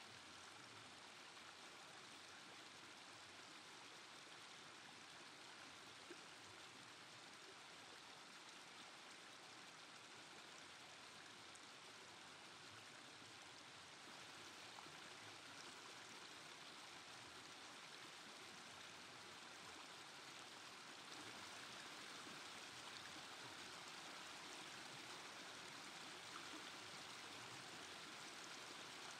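Faint, steady rush of a small creek spilling over a low weir, growing a little louder about halfway through and again later.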